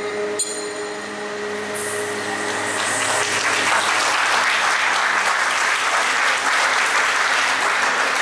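Audience applauding, building up over the first few seconds and then holding steady, while the last held notes of the dance music fade out.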